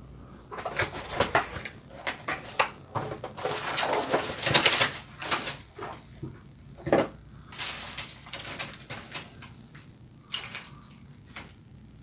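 A cardboard box being opened and plastic bags of Lego bricks handled and laid out: irregular crinkling and rustling, busiest about four to five seconds in, dying away near the end.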